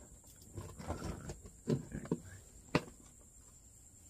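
Handling noises: a soft rustle, then a few light knocks and one sharp tap a little before the end.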